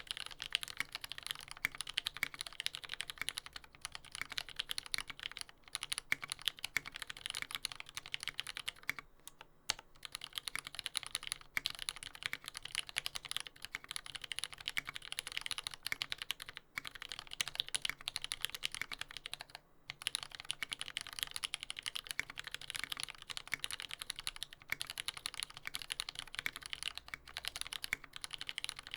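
Fast, continuous typing on a TX75v2 mechanical keyboard with a brass plate and lubed retooled Cherry MX Black linear switches, with short pauses about nine, sixteen and twenty seconds in. Spring noise comes from the E and D keys, which the owner says still need relubing.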